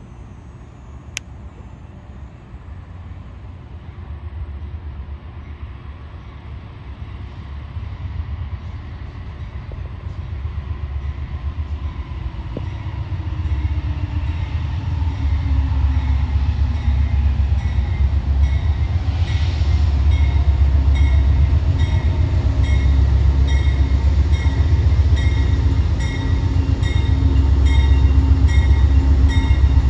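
Amtrak diesel passenger train approaching and pulling into the station, the locomotive's deep engine rumble growing steadily louder. In the last third a bell rings at a steady pace, about twice a second, typical of a locomotive bell sounded on arrival.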